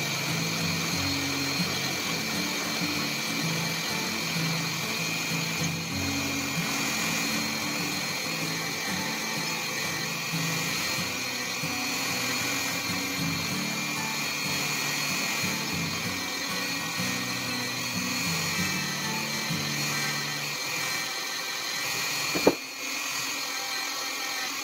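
Handheld rotary tool with a small wheel running steadily at high speed with a constant whine, scrubbing rust off the cast-iron base of a Stanley 71 1/2 router plane. Background music plays underneath, and there is a single sharp knock near the end.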